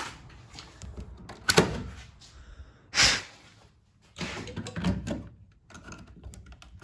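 Several knocks and thuds of a door being handled, the loudest about one and a half and three seconds in, then lighter rustling and a few small clicks.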